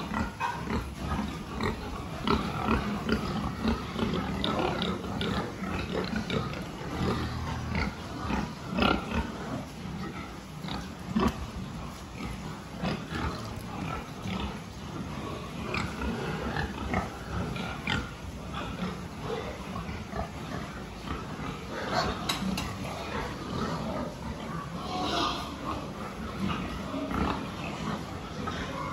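A pen of young pigs grunting and calling, a steady jumble of short sounds. Scattered knocks and clicks run through it, and a couple of higher-pitched calls come about two-thirds of the way through.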